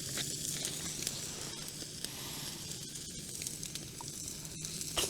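Sirloin steak sizzling on a small gas-fired backpacking grill: a steady frying hiss with scattered small crackles and pops.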